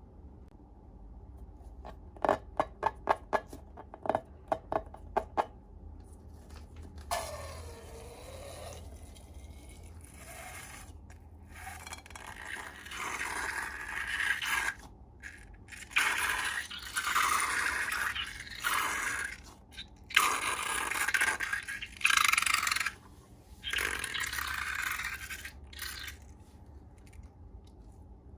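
About ten sharp clicks in quick succession, then several bursts of scraping and rubbing during slime making.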